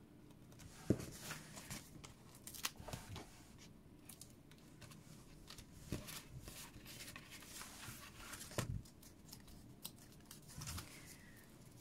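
Faint paper handling as foam adhesive dots are peeled and pressed onto a cardstock box: light rustling of card and backing paper, with a few short, sharp taps.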